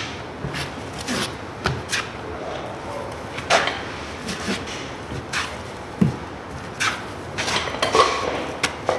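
Steel taping knife scraping and spreading joint compound over taped drywall seams in short, irregular strokes. Near the end the knife is scraped clean against the edge of a mud pan.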